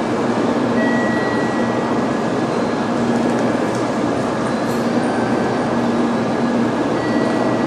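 Steady rumble and hiss of train noise on a Shinkansen station platform, with a few faint high tones coming and going.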